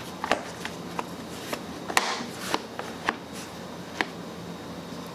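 Irregular light clicks and knocks as the plastic engine cover is fitted back over a Kohler 149cc lawn mower engine by hand; the loudest knock comes about two seconds in.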